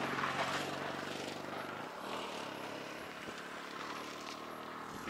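An engine running steadily, a low droning hum whose pitch pattern shifts about two seconds in.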